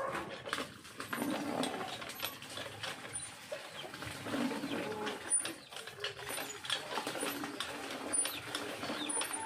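Manual hand water pump being worked up and down by its lever, giving repeated creaks and squeals with each stroke.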